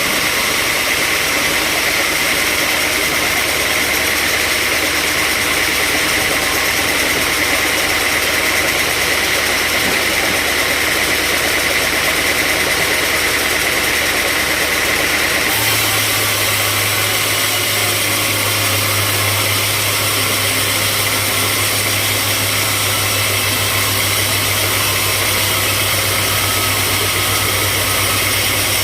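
Sawmill machinery running steadily with a constant engine-like drone and hiss. About halfway through, the low hum steps up to a higher pitch and the hiss changes.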